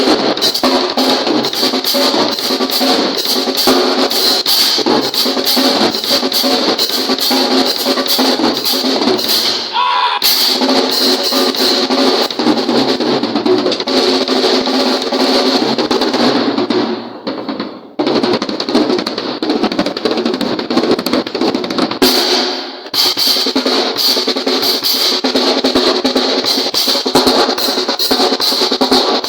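Pearl drum kit played in a busy run of fast snare and drum strokes, with a short break about ten seconds in, a fade to a stop around seventeen seconds, and another brief gap about twenty-two seconds in before the playing resumes.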